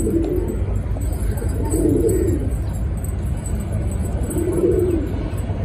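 Domestic pigeons cooing: three low, swelling coos about two seconds apart over a steady low rumble.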